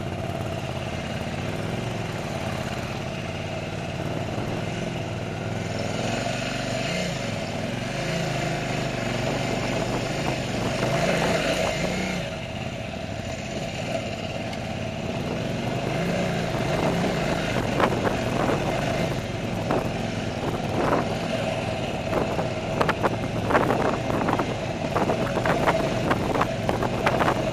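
Off-road motorcycle engine running under changing throttle, its pitch rising and falling. In the second half come many sharp clicks and knocks as the bike jolts over rough rock.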